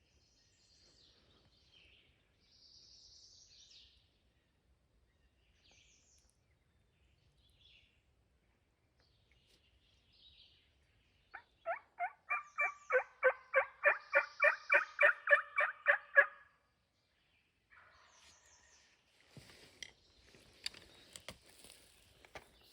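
A run of about twenty evenly spaced turkey yelps, about four a second and growing louder, from a hunter's hen call used to bring in a gobbler. Faint songbird chirps come before it, and a few sharp knocks and rustling follow near the end.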